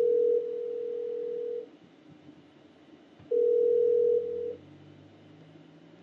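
Yahoo Messenger 10's outgoing call ring tone: a steady single-pitched beep that ends about one and a half seconds in, then sounds again for a little over a second around the middle, while the video call waits to be answered. Each beep drops in loudness partway through.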